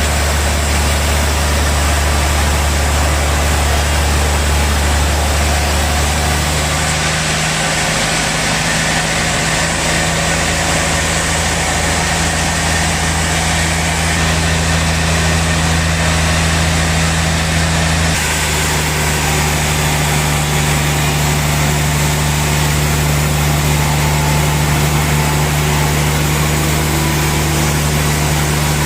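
Sawmill machinery running with a steady, loud low hum. The hum changes abruptly in pitch about seven seconds in and again around eighteen seconds.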